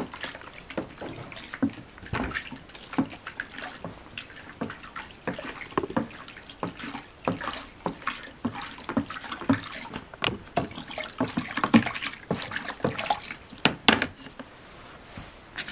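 Flat wooden paddle stirring lye (caustic soda) solution in a plastic bucket: liquid sloshing with a dense, irregular run of knocks and scrapes as the paddle hits the bucket's sides, the stirring that dissolves the lye and cools the solution before the oil goes in.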